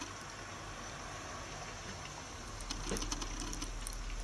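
Kitten sucking and nibbling on its own paws: small wet clicks about three seconds in, over a low steady hum.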